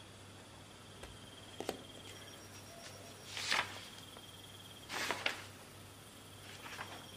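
Paper pages turned by hand: two short papery swishes about a second and a half apart, the second a little past the middle, with a small tap earlier on. Under them runs a high cricket trill that comes and goes, from a night-forest ambience.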